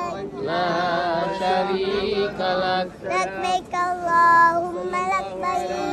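A young girl's voice chanting an Islamic devotional chant in a sing-song melody, phrases with held notes and short breaks between them.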